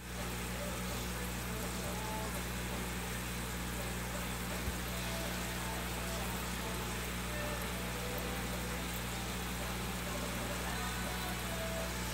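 Steady low hum of an aquarium air pump with light bubbling from the air line in a tub of water, with faint small pings from the bubbles and one soft knock about halfway through.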